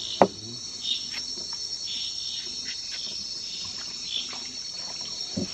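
Steady high-pitched chorus of rainforest insects, crickets or similar, chirring without a break. A single sharp knock about a quarter second in, and a few faint clicks after it.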